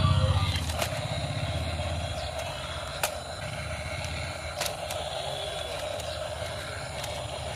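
Remote-control toy excavator running, a steady low engine-like drone with a few sharp clicks.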